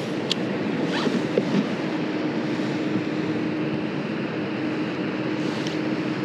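Shimano Aldebaran BFS baitcasting reel being cranked to retrieve a lure: a steady whir that comes in about two seconds in. Wind noise on the microphone and water lapping at the kayak run underneath.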